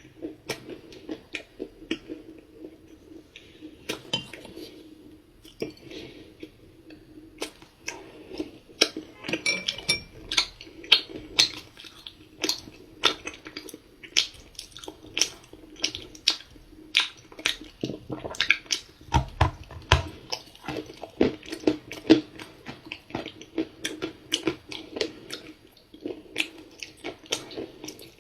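Close-miked chewing of a dry, crumbly cookie chunk: quick, irregular crisp crunches, several a second, with a heavier bite about two-thirds of the way through.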